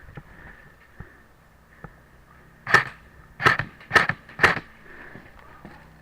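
Four sharp cracks of airsoft gunfire, the first about three seconds in and the next three about half a second apart.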